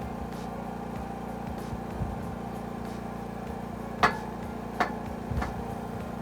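Three sharp knocks in the second half, the first the loudest and briefly ringing, as work goes on fitting a metal gate. A steady engine-like hum runs underneath.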